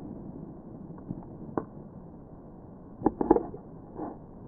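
Steady muffled outdoor noise with a few scattered sharp knocks and cracks, the loudest a quick cluster about three seconds in.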